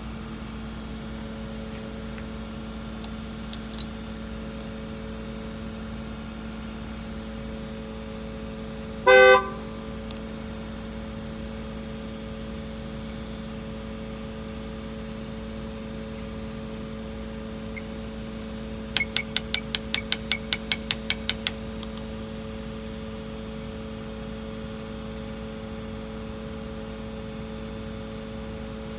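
A steady electrical-sounding hum throughout. About nine seconds in, a single short, loud car horn honk. Around twenty seconds in, a quick run of about a dozen sharp, high chirps, roughly five a second.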